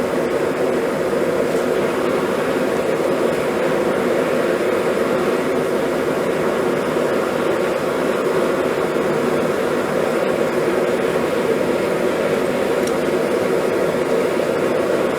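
A lit forge running with a steady, even noise that does not change, and no hammer blows.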